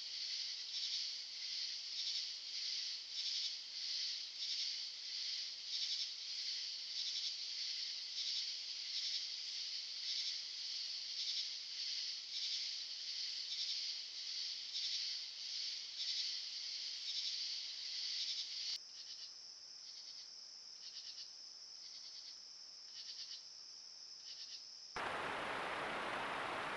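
Insects calling in a pulsing high-pitched chorus, about two pulses a second. About two-thirds of the way through it changes abruptly to a quieter, steadier high trill, and near the end an even hiss takes over.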